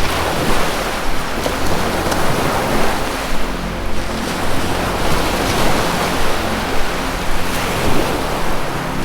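Ocean surf washing and breaking continuously, with a soft low sustained music drone underneath.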